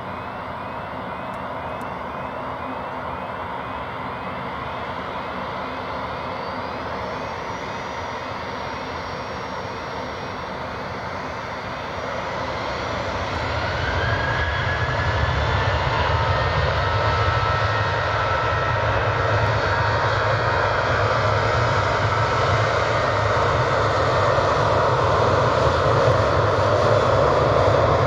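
Boeing 737-800 jet airliner's CFM56 turbofan engines running, growing steadily louder from about halfway with a rising whine and a deepening rumble as the engines spool up.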